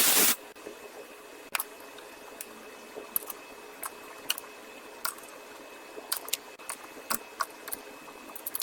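A short hiss at the very start, then scattered sharp metallic clicks over a faint steady hum: a wrench and hex key working the rusted top nut off a VW Sharan's front shock absorber rod.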